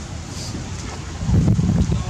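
Wind buffeting the microphone: a low rumble that swells into a louder gust a little over a second in.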